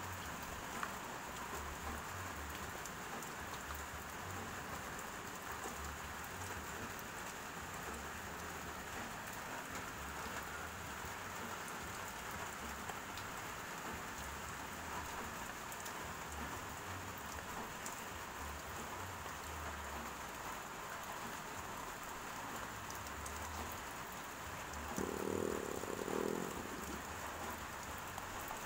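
A steady, even hiss with soft, irregular low thumps throughout, and a brief louder rustle about 25 seconds in.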